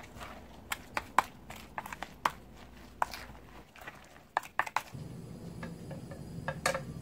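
Wooden spoon stirring a wet egg-and-chopped-vegetable batter in a plastic bowl: irregular wet clicks and squelches. About five seconds in this gives way to a steady low hum with a few light taps.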